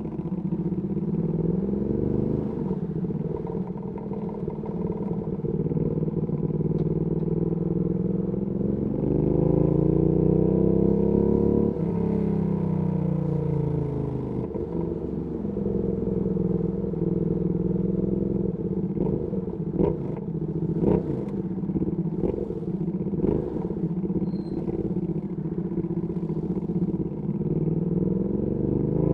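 Ducati Panigale V2S V-twin through a Termignoni exhaust, mostly running at low revs. It revs up about nine seconds in and eases back down a few seconds later, then rises again near the end. A few sharp clicks come through in the middle.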